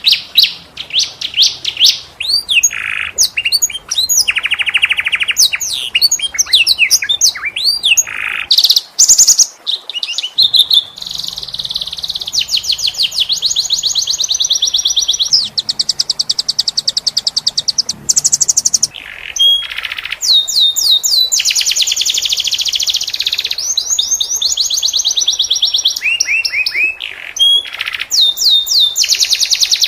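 Domestic canary singing a long, varied song of rapid trills and rolls, with sweeping whistled notes between them.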